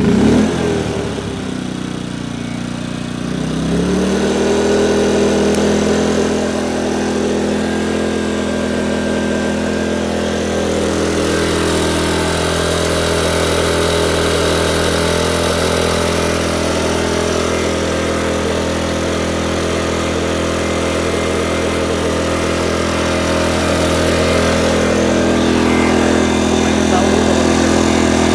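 Yikito EU22i soundproofed petrol inverter generator starting up and running. Its engine pitch rises about three to four seconds in, then holds a steady run.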